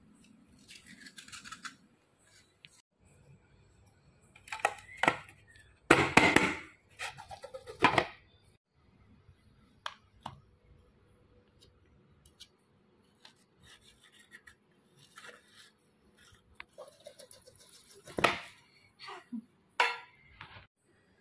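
Metal kitchen handling: a knife scraping around the inside of a round aluminium cake tin and tins clinking and knocking on a tiled floor, in scattered clinks and scrapes. There are a few louder clatters about six to eight seconds in and again near eighteen seconds.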